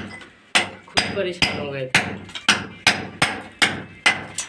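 Hammer blows in a steady rhythm, about two to three sharp strikes a second.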